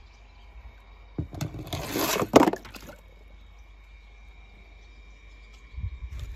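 A toy car dropped into water: about a second and a half of splashing with a sharp knock near its end.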